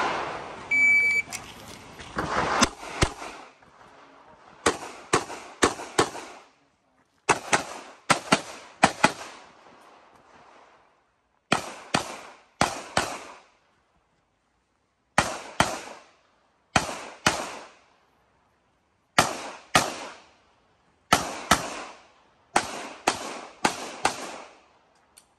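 A shot timer's start beep about a second in, then a handgun firing about thirty shots in a practical shooting stage. The shots come mostly in quick pairs, two per target, with gaps of a second or two between groups.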